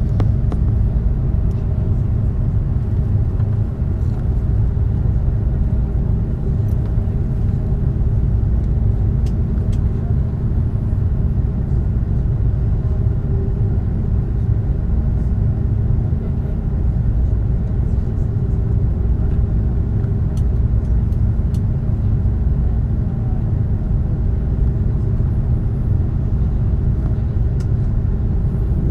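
Steady low rumble inside the cabin of an Airbus A330 as it taxis, its engines at low taxi power, with a constant hum over it.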